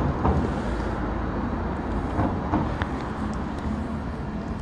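Steady low rumble of outdoor street background noise, with a few faint clicks, once near the start and a few more around the middle.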